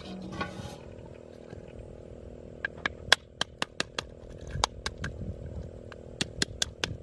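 Knife blade chopping through snail shells on a small wooden board: a string of sharp, irregular cracks and knocks, starting about two and a half seconds in.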